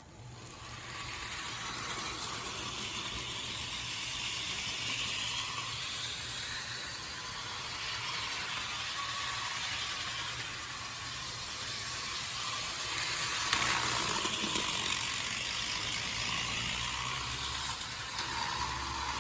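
Bachmann HO scale model locomotive running on the track: a steady whir of its small electric motor and wheels on the rails, with a single click about 13 seconds in.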